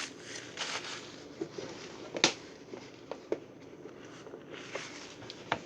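A few sharp knocks and clicks, the loudest about two seconds in, with soft shuffling between them: someone moving about a kitchen and handling food containers.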